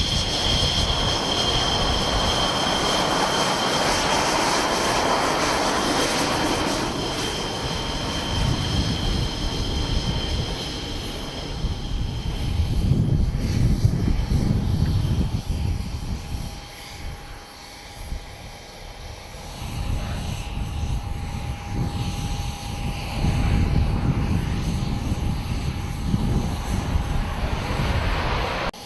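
Jet engines of J-20 stealth fighters taxiing: a steady high whine over a deep rumble that swells twice, around halfway through and again near the end.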